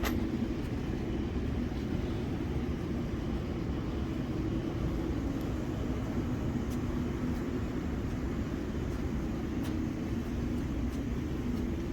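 Steady low machinery hum of body-shop background noise, with a few faint clicks.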